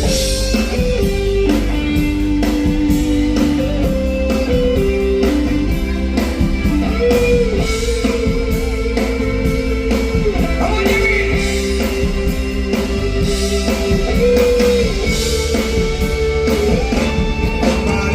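Live band playing an instrumental intro: a lead guitar carries a melody of held notes over a steady drum beat and bass.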